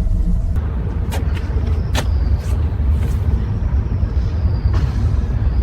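A steady low rumble like a running vehicle engine, with several sharp clicks between about one and three seconds in.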